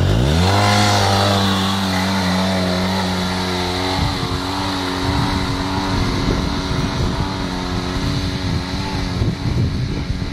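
Polaris RZR 800 side-by-side's twin-cylinder engine revving up sharply as it pulls away, then holding a steady high note under full throttle as it climbs a steep grassy hill. From about four seconds in the sound turns rougher and rumbling, and it slowly grows fainter as the machine moves off.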